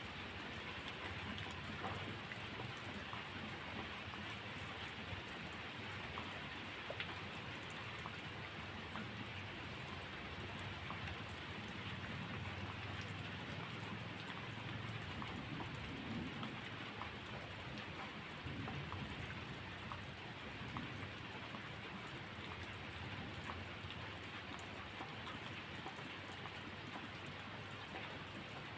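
Steady rain falling, an even hiss scattered with small ticks of individual drops, with a soft low rumble around the middle.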